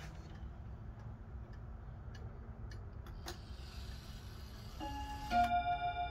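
Vintage Dutch Warmink staartklok ticking about once a second, then near the end its bim-bam strike sounds two ringing notes about half a second apart, the second louder and ringing on, set off as the minute hand is turned by hand.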